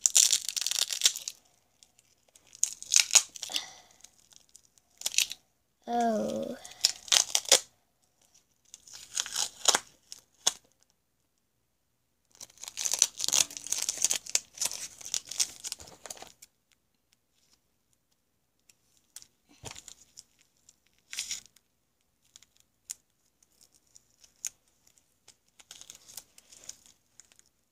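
Red tape being peeled and pulled off the hands in several tearing bursts in the first half, with crinkling of the crumpled tape. A short strained vocal sound comes about six seconds in, and only faint scattered crackles follow after about sixteen seconds.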